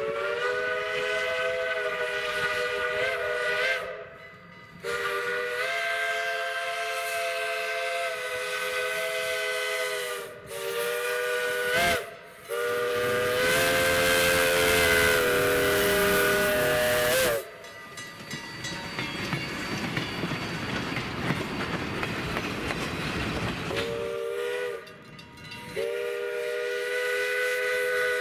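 Steam locomotive whistle, a steady multi-note chord, sounding the grade-crossing signal of two long blasts, one short and one long, the last blast the loudest. A few seconds of rushing noise and steam hiss follow, then the whistle starts the pattern again with a short blast and a long one near the end.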